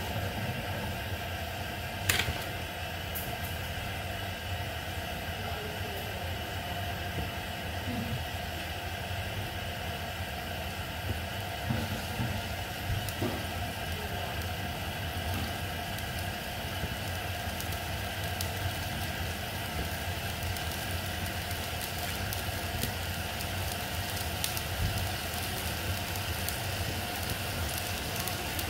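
Shallot and herb liquid for béarnaise simmering in a stainless steel skillet over a gas burner, being reduced: a steady rush with small bubbling pops that grow busier toward the end. One sharp click about two seconds in.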